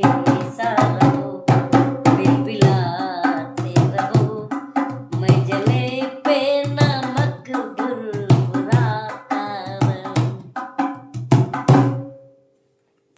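Hindi song sung with wavering pitch over a steady beat of drum strokes and a held note; the music stops near the end.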